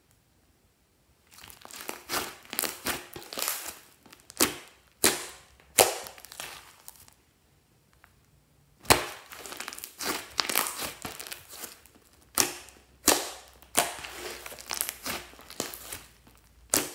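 Thick pink slime stretched, folded and pressed by hand: runs of sticky crackling with sharp pops. Quiet for about the first second and again for a couple of seconds past the middle.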